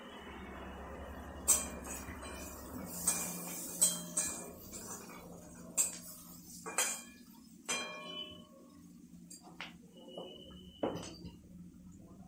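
Metal spatula and spoon clinking and scraping against a metal cooking pan and a steel grinder jar: a string of about ten sharp metallic clinks, some ringing briefly.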